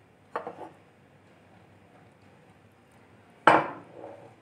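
A plastic spoon knocking against a glass mixing bowl while stirring flour and water into a batter: two sharp knocks, a lighter one about half a second in and a louder one near the end.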